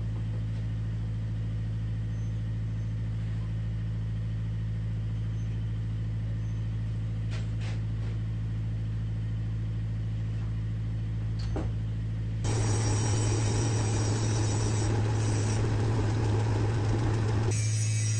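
Old metal lathe running with a steady motor hum while a winch shaft is cleaned up to fit a ball bearing. About two-thirds of the way through, a louder, rougher running sound joins the hum and carries on.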